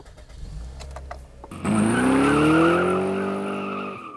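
A few light clicks over a low engine rumble, then about a second and a half in a car's engine suddenly revs hard, its pitch climbing steadily for over two seconds with tires squealing as the car pulls away, dropping off near the end.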